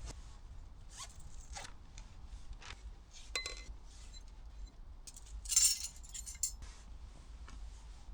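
Small objects being handled: light clicks and taps, a ringing clink about three and a half seconds in, and a short rasping rustle around five and a half seconds in, the loudest sound.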